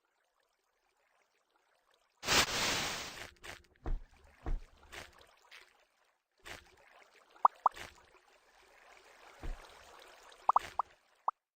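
A sleeping man's loud, noisy breath or snort about two seconds in, followed by scattered soft knocks and shuffling, a fainter drawn-out breath in the second half, and several short sharp pops near the end.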